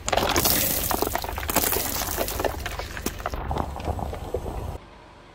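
A car tyre rolling over and crushing brittle objects: a dense, loud run of cracking and crunching that starts suddenly and cuts off abruptly near the end.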